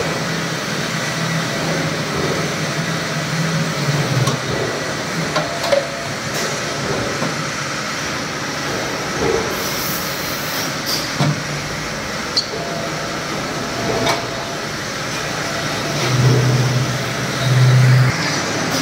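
Horizontal metal-cutting band saw running steadily, with a low hum that swells louder twice near the end. Several short metallic knocks come through along the way.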